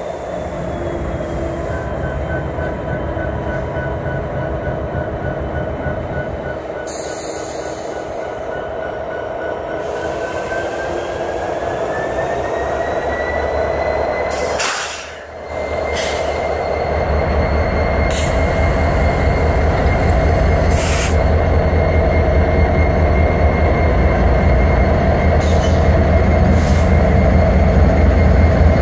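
Union Pacific EMD SD70ACe diesel locomotive rolling slowly past, its engine running with a low hum that grows louder in the second half. Thin, high wheel-squeal tones drift slowly in pitch over it, and a few sharp clicks or clanks come from about halfway on.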